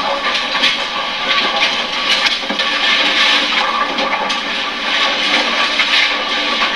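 Bowling alley din: a loud, steady rushing noise of balls rolling down the lanes, with many small clatters of pins scattered through it.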